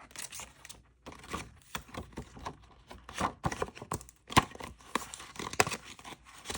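Handling of plastic zipper cash envelopes and paper in a budget binder: rustling and crinkling with many small clicks and taps, two of them sharper and louder, about four and a half seconds in and again a second later.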